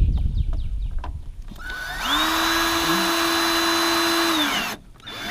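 Power drill driving a screw: it spins up, runs steadily for about two and a half seconds with a whine, and drops in pitch as it stops. Low rumbling and knocking of handling come before it.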